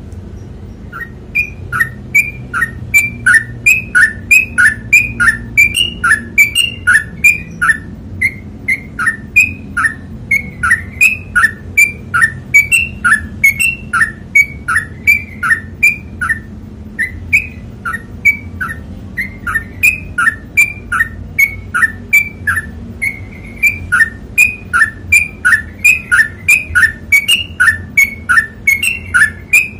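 Yellow-vented bulbul (trucukan) singing its long 'ropel' song: a long run of quick, loud, repeated two-note whistled phrases, nearly two a second, with a few short breaks.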